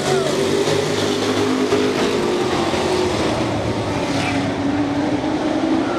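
Engines of a pack of short-track race trucks running together as they race past, several engine notes overlapping in a steady, loud mix.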